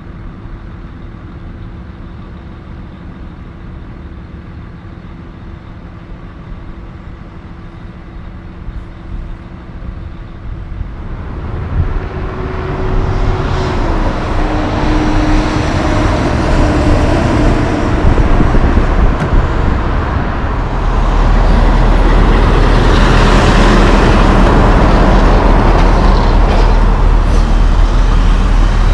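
Diesel truck engines and road traffic: at first a steady, quieter engine hum with a low tone, then road noise builds past halfway as vehicles drive by, ending in a loud, close, low rumble from a heavy truck.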